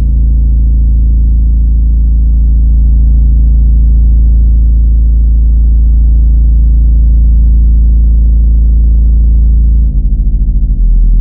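A loud, deep droning tone: a steady low hum with a stack of overtones, no high sounds. Near the end it wobbles rapidly for about a second, then settles lower.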